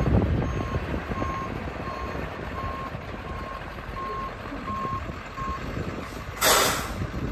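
An International 4700 truck's backup alarm beeping at one steady pitch, about three beeps every two seconds, over its 7.3-litre V8 diesel running, as the truck reverses. The beeping stops about five and a half seconds in, and a short hiss of air follows, typical of the truck's air brakes.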